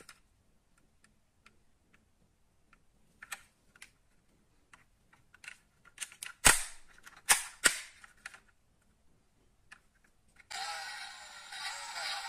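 Small clicks and snaps of a die-cast Range Rover model car's opening doors and parts as it is handled, loudest in a cluster of sharp snaps about six to eight seconds in. Music starts near the end.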